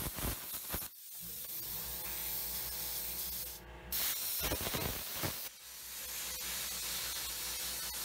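Hypertherm plasma cutter hissing steadily as it cuts through the welds holding old steel flat bar, with two short breaks in the cut. The first break is about a second in, the second a little past five seconds.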